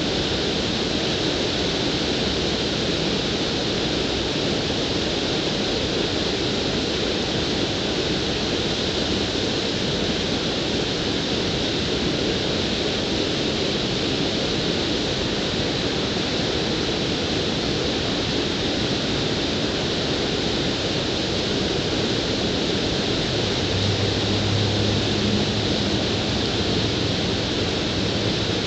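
Water pouring steadily over a low concrete weir, an even rushing. A low hum joins briefly near the end.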